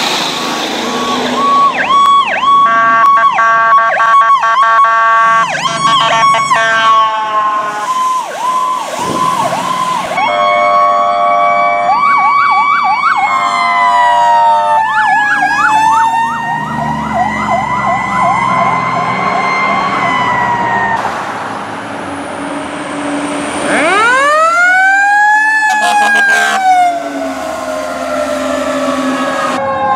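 Fire truck sirens: electronic sirens wailing and yelping, sometimes several at once, switching abruptly from one to the next. About 24 seconds in, a siren winds steeply up in pitch and then slowly falls away.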